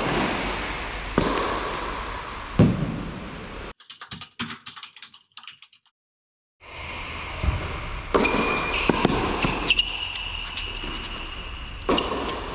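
Tennis ball struck by rackets in an echoing indoor hall, with sharp hits about one and two and a half seconds in. Then comes a short run of typewriter-style clicks and a few seconds of silence. Play resumes with more ball strikes and long, high squeaks of shoes on the court.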